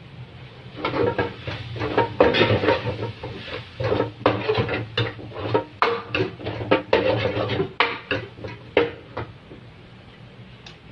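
Metal spatula scraping and clanking against a steel wok while stirring a thick mixture, in irregular strokes that thin out in the last second or so.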